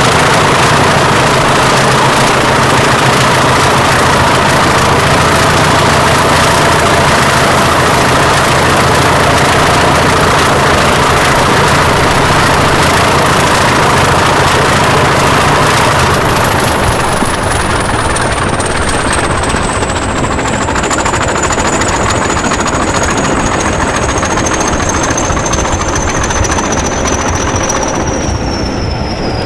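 English Electric 8SVT diesel engines of a pair of Class 20 locomotives working hard, with a high turbocharger whistle over the engine noise. About halfway through the power comes off: the whistle falls steadily in pitch as the turbochargers run down, and the engines quieten a little.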